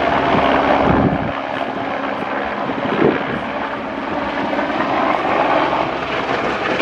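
A small single-rotor helicopter flying low past, its rotor and engine noise steady and loud.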